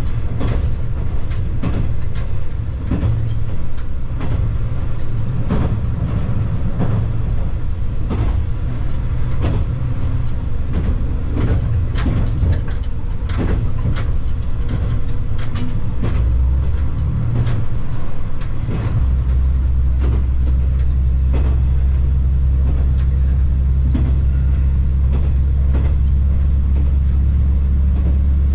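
JR Kiha 120 diesel railcar running, heard from inside the car: a low engine drone with frequent clicks and knocks from the wheels and track. About 19 seconds in, the engine settles into a stronger, steady low drone and the clicks thin out.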